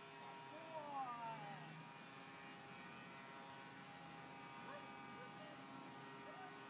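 Faint steady electrical hum, with a few short falling high-pitched calls about a second in.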